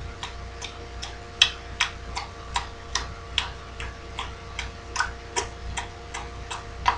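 A person clicking the tongue against the roof of the mouth in a steady rhythm, about two and a half clicks a second, some clicks louder than others.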